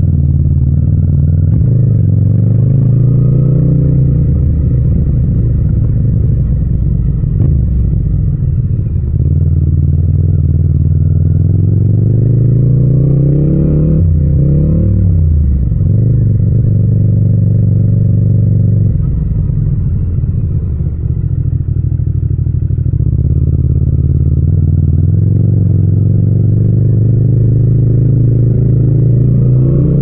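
Yamaha MT-07's parallel-twin engine running at low road speed in second and third gear, with no wind noise over it. The revs climb and drop briefly about halfway through and are otherwise steady.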